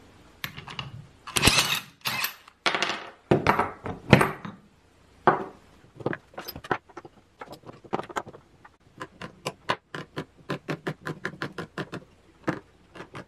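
Knocks and clatter of a jointer's Shelix cutter head and its bearings being handled and set into a wooden clamping jig, then a run of quick, regular clicks near the end.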